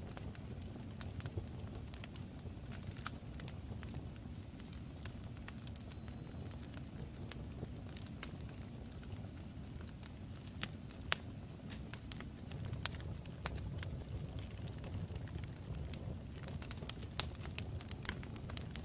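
Fire crackling: scattered sharp pops and snaps over a steady low rumble, with a faint thin high whistle held through the first half.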